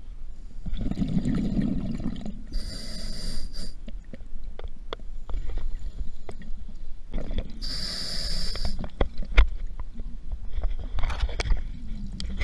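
A diver breathing through a scuba regulator. Exhaled air bubbles out with a low rumble, and the demand valve gives a sharp hiss with a thin whistle on each inhalation, twice, with small clicks of bubbles in between.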